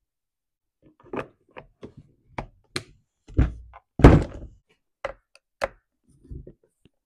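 A Stihl MS 271 chainsaw being handled on a workbench: a run of knocks and thunks as it is turned around and set down, the two heaviest about three and a half and four seconds in. Two sharp clicks follow as the twist-lock knob of its top cover is turned.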